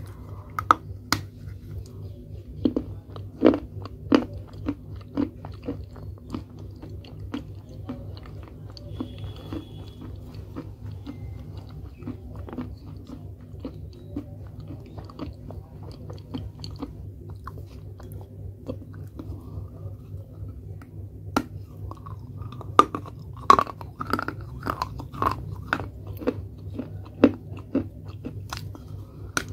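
A person biting and chewing pieces of a baked clay pot: crisp crunches, a few loud bites in the first four seconds, quieter chewing through the middle, then a dense run of loud crunches over the last eight seconds.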